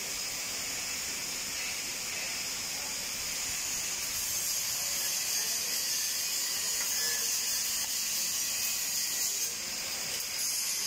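Steady hiss of an oxy-acetylene cutting torch's gas flow at the nozzle.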